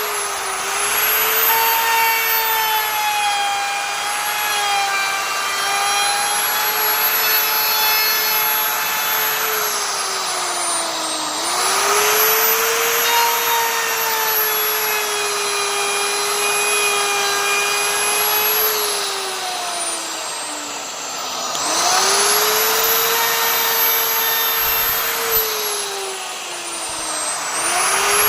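Electric wood router running with a high whine over the hiss of cutting; its pitch sinks several times as the bit works through the wood under load, then climbs quickly back as the load comes off.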